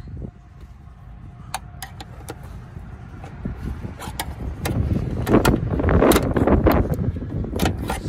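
Plastic interior trim on a pickup's door pillar being pried at its clips with a long screwdriver: plastic scraping and creaking with several sharp clicks, growing louder about halfway through.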